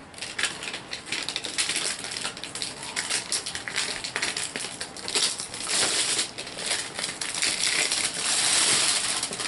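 Packaging of a HeroClix booster brick being opened and handled, with dense crinkling and crackling and many small sharp clicks.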